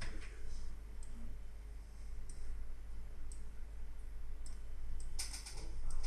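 Computer mouse clicking: single sharp clicks about once a second, then a quick run of several clicks near the end, over a steady low electrical hum.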